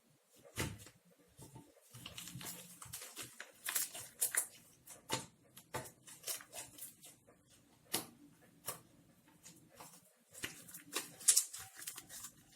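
Homemade glitter glue slime being squeezed, stretched and pressed by hand, giving irregular sticky clicks, pops and squelches.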